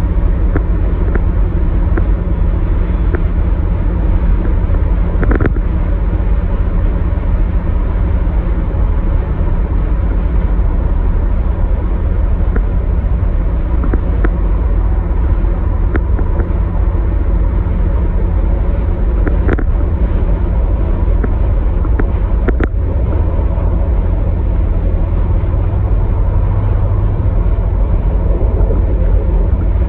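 Steady road and engine noise of a car cruising at highway speed, heard from inside the cabin, mostly a deep rumble with tyre hiss. A few brief knocks break through now and then, as from bumps or joints in the road surface.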